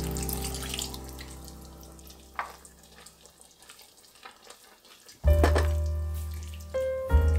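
Liquid pouring into a cooking pot, fading out in the first second, then a couple of small splashes and clicks as ingredients are stirred. Slow background music with deep held low notes comes in about five seconds in and again near the end.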